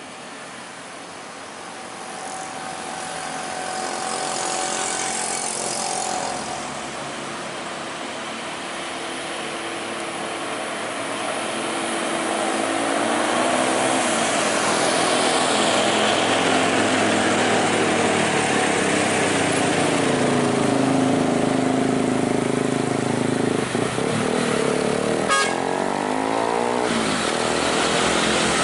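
Traffic on a steep mountain climb: heavy trucks' diesel engines labouring uphill, with motorcycles and cars passing. The engine sound grows louder through the middle as a truck comes close, and its pitch wavers near the end.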